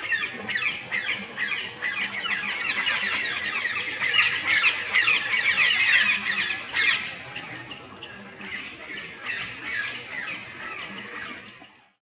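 A roosting flock of rose-ringed parakeets calling together: many short, overlapping squawks in a dense chorus. It is loudest from about four to seven seconds in, then thins out and fades away at the very end.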